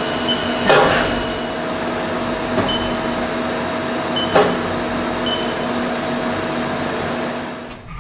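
Haas Super Mini Mill 2 CNC milling machine cutting aluminium, a steady spindle and cutting noise with several constant whining tones. Two short sharp clatters come about a second in and again about four and a half seconds in. The sound drops off sharply just before the end.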